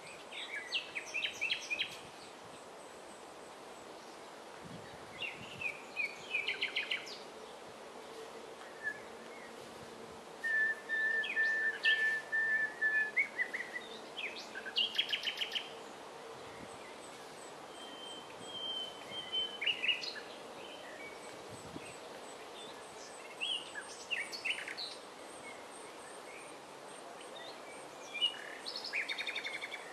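Common nightingale singing: phrases of a few seconds separated by pauses, mixing fast runs of repeated notes with a long, level whistled note about ten seconds in.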